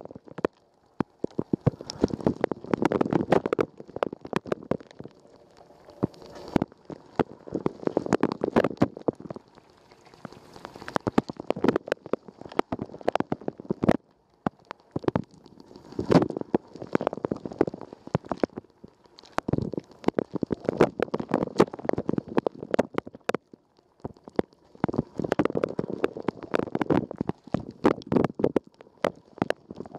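Water spray inside a Rosenlew dishwasher during the wash, splashing and pattering close up inside the tub. It comes in surges of a few seconds, roughly every four to five seconds, with brief lulls between.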